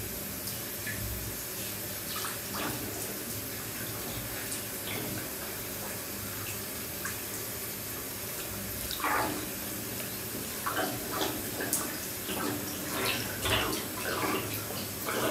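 Bath tap running steadily into a nearly full bathtub. From about nine seconds in, the water sloshes and splashes in irregular bursts as a person shifts their legs in the bath.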